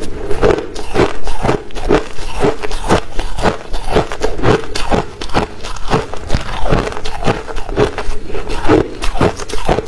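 Crunchy ice being chewed close to a clip-on microphone: a steady run of sharp crunches, about two to three a second.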